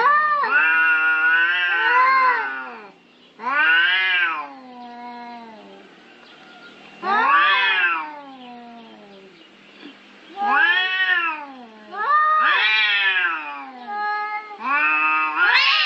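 Domestic cats caterwauling in a territorial standoff: about six long, wavering yowls that rise and fall in pitch, one after another with short pauses between.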